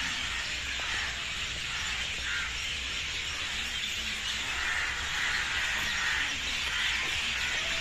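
A dense chorus of many small birds chirping and twittering at once, a continuous busy wash of overlapping calls.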